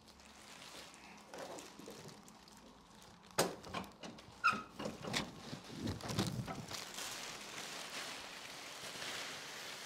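Faint handling noises: a few light clicks and knocks, the clearest about three and a half seconds in, a short squeak, then a soft hiss of rustling in the second half.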